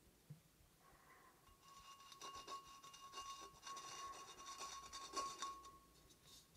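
Fine nozzle of an underglaze pen scratching faintly across bisque-fired porcelain in short rubbing strokes as script is written on a vase. The scratching builds about two seconds in and fades near the end.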